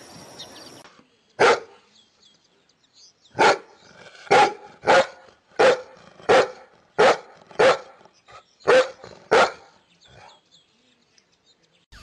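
A large shepherd-type dog barking: about ten single, loud barks, the first on its own, then nine coming every half second to a second.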